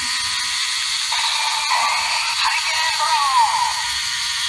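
DX Drago Timer toy playing its electronic sound through its small, tinny speaker while the timer runs through its dragon cycle: a steady looping standby sound, with swooping falling effects over it about two seconds in and again around three seconds in.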